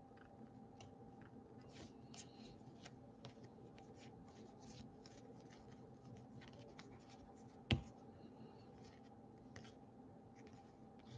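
2018 Topps Series 2 baseball cards being flipped through by hand: faint, scattered slides and flicks of card stock, with one sharper click about two-thirds of the way in. A faint steady hum sits underneath.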